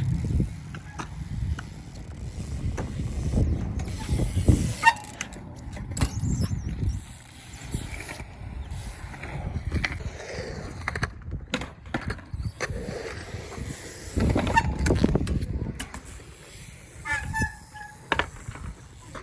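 BMX bike being ridden on concrete: the tires roll with a rumble that swells and fades several times as the rider carves through the bowl, with clicking from the rear hub and a few short squeaks.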